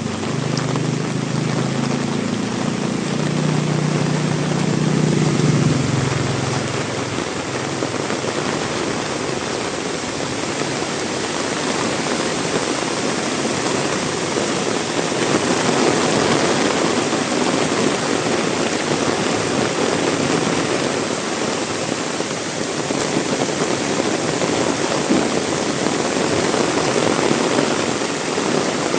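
Heavy rain pouring steadily and splashing on hard surfaces. A vehicle engine hums low under it for the first six seconds or so, then fades away.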